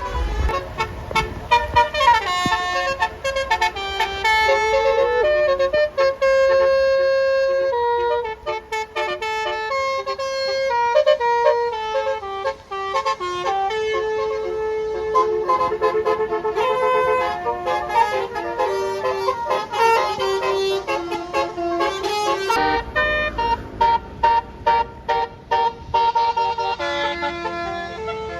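Bus telolet horn of the Basuri kind playing a tune of quick stepping notes, some repeated in fast stutters. A low road rumble runs underneath in the last third.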